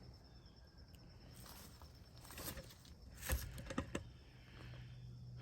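A few faint clicks and knocks, the loudest a sharp knock about three seconds in, over a low steady hum.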